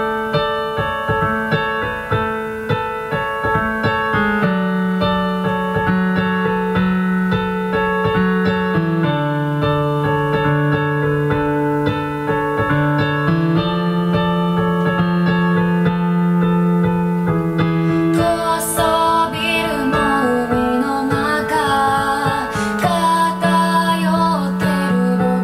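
Piano playing a slow intro of sustained chords that change every few seconds. About eighteen seconds in, a woman's singing voice comes in over the piano.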